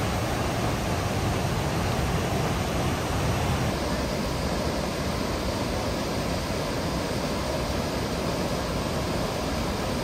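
Steady rush of the fast-flowing Niagara River, an even, continuous wash of water noise; its low rumble eases a little about four seconds in.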